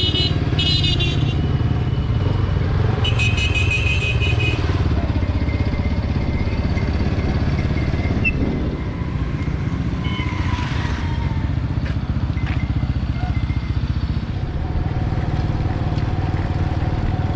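Road traffic close by: a small engine running steadily with a pulsing rumble, and short horn toots right at the start and again about three seconds in.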